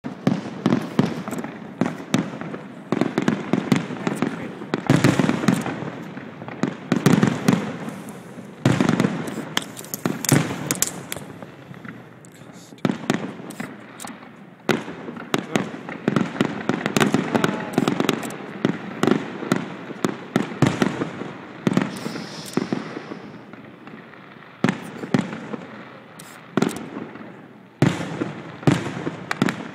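Aerial fireworks shells bursting: a long run of bangs at irregular intervals, sometimes several in quick succession, each followed by an echo.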